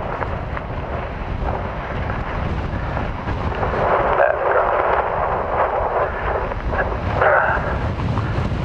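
Strong wind buffeting the microphone: a steady rumble that swells in gusts about halfway through and again near the end.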